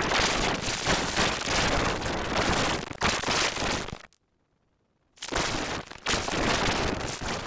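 Heavily distorted, crackling noise from a cartoon clip's soundtrack put through audio effects, too mangled for speech to be recognised. It cuts out about four seconds in for roughly a second, comes back, and fades out near the end.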